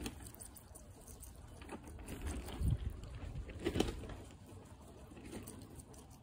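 Guinea pig biting and chewing a red grape held in the fingers: irregular small crunches and smacks, the loudest about two-thirds of the way in, over a low rumble of wind on the microphone.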